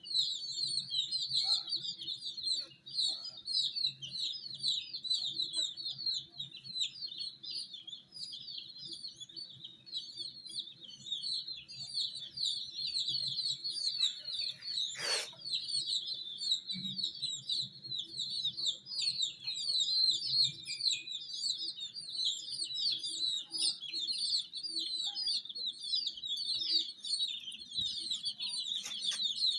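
A brood of baby chicken chicks chirping, many high short peeps overlapping without a break. One sharp click about halfway through.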